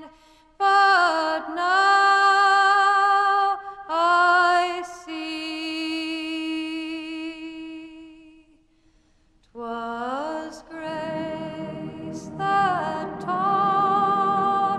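Background music: a slow song with a solo singing voice holding long notes. The singing breaks off briefly about two-thirds of the way through, then resumes with a fuller, lower accompaniment underneath.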